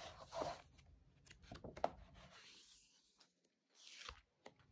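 Faint rustling and soft taps of a paperback sticker book's pages being handled, with the swish of a page being turned about four seconds in.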